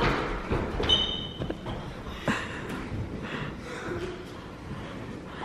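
Scattered thumps and footsteps of children running on a bare tile floor in a large, empty room, with a brief high squeak about a second in.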